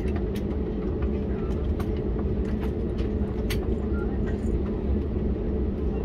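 Airbus A321neo cabin noise while taxiing: a steady low rumble of the jet engines at idle and the airliner rolling on the taxiway, with a few faint clicks and rattles.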